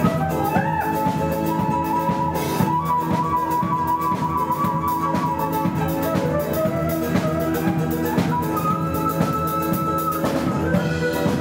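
Live instrumental music from a band of subway buskers: a steady drum beat under long, held melody notes.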